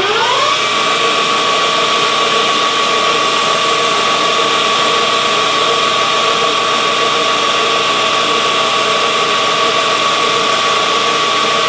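Metal lathe running at about 1500 rpm with a steady machine whine. Its pitch rises briefly at the start as the spindle comes up to speed, while a carbide insert takes a light cut on a steel bar.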